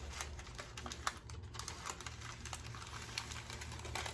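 Parchment paper being peeled slowly off a thin layer of fathead pizza dough, giving a run of soft, irregular crackles and ticks over a faint steady low hum.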